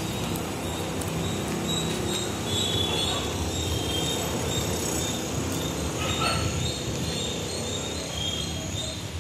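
Birds chirping over and over in short high notes above a steady low outdoor rumble.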